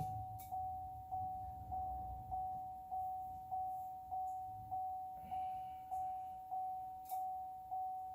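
An electronic chime dinging at one steady pitch, about every 0.6 s, each ding sharp and quickly fading, over a faint low hum.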